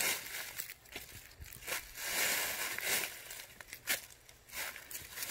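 Dry fallen leaves crunching and crackling under a toddler's small footsteps and kicks, in uneven bursts.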